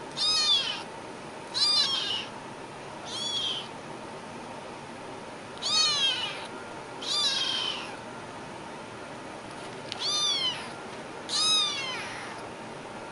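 Young kitten meowing seven times, short high-pitched calls about half a second each that rise and then fall in pitch, spaced one to three seconds apart.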